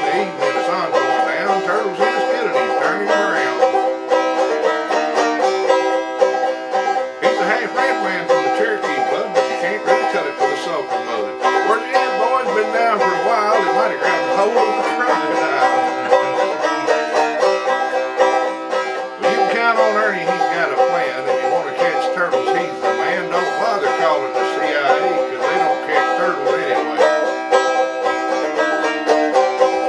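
Banjo picked continuously in an instrumental stretch between sung verses of a country song.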